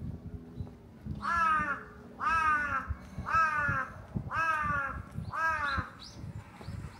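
A crow cawing five times, about one caw a second, each caw a harsh, arching call.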